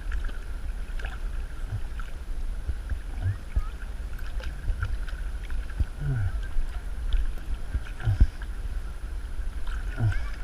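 Low outdoor rumble of wind and water on the microphone, with scattered small clicks and knocks, while a hooked largemouth bass is played on rod and reel.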